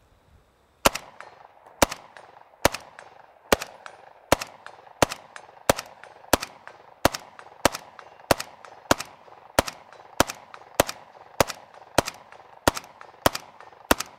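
Soviet AKS-74U carbine in 5.45x39 firing with its muzzle booster removed: about twenty single shots at a steady pace of roughly one and a half a second, starting about a second in. The rifle cycles every round and runs fine without the booster.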